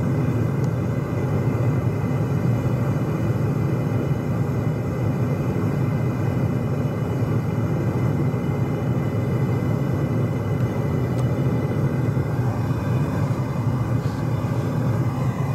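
Propane gas forge with an Amal gas burner running, a steady low rush of burning gas with no let-up. The burner is set to a very rich mixture, giving a reducing atmosphere inside the forge as it heats up.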